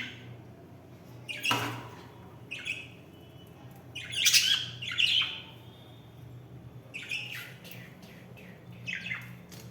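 Pet budgies chirping and squawking in short separate calls scattered through the stretch, the loudest about a second and a half in and again around four to five seconds in.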